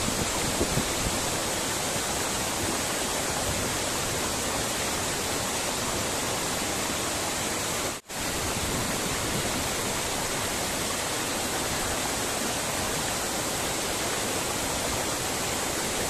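Steady rush of a waterfall pouring down a rock face and cascading over boulders. It drops out for a moment about halfway through.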